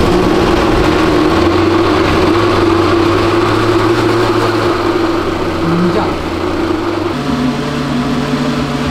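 Countertop blender running, mixing cake batter. A steady motor whine whose pitch drops lower about seven seconds in.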